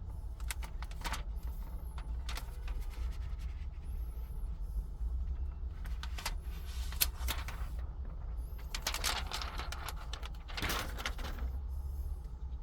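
Scattered clicks, taps and rustling from handling a tempered glass screen protector and its kit at a truck's infotainment screen, over a steady low rumble in the cab. There are two longer scraping, rustling spells near the middle and toward the end.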